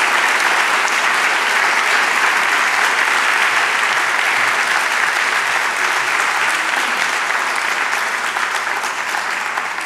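Audience applauding, a dense steady clapping that eases off slightly over the last few seconds.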